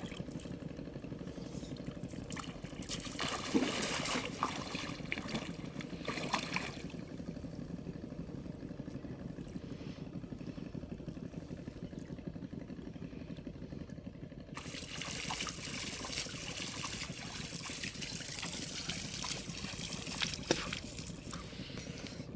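Water trickling and splashing in two spells, a few seconds in and again from the middle to near the end, with small clicks, over a steady low rumble.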